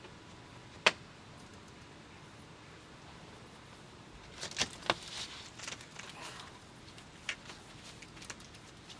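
A single sharp click about a second in, then a run of clicks, knocks and light rattles, with a few more single clicks near the end: handling noise from objects being moved or latched.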